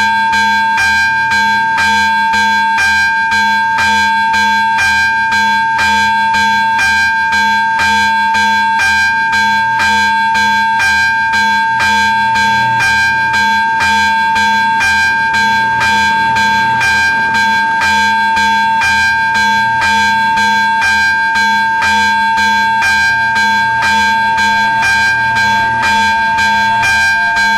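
AŽD 71 level-crossing warning bell ringing over and over at about two strikes a second, the signal that the crossing is closed and a train is on its way.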